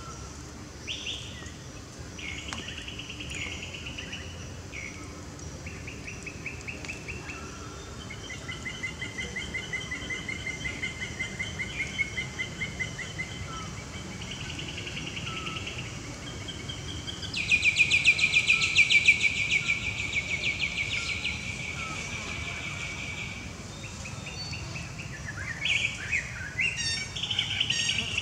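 Forest chorus of rapid, high trilling calls, some short and some long, overlapping one another. The loudest is a dense trill that runs for about five seconds just past the middle. Another burst of trills comes near the end.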